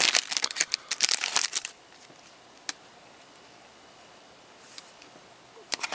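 Trading cards and a crinkly foil pack wrapper being handled, with dense crinkling and snapping for about the first second and a half. It then goes quiet apart from a couple of single faint clicks.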